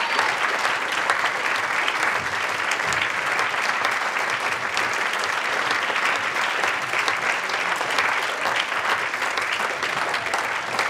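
Large crowd applauding steadily, dense clapping with cheering mixed in.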